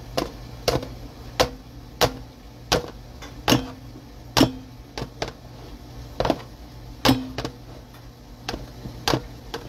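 Air fryer basket held upside down over a plastic food tub and knocked repeatedly to shake the cooked cocktail sausages loose: a dozen or so sharp knocks, about one every two-thirds of a second.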